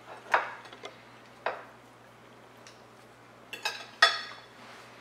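Cutlery clinking against a plate a few times while a pancake is cut and picked at. The loudest clink, about four seconds in, rings briefly.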